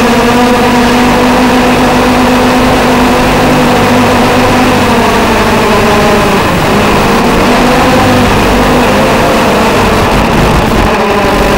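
The electric motors and propellers of a TBS Gemini mini hexacopter whine in flight with a steady pitch. Partway through, the pitch wavers and dips as the throttle changes, then settles again.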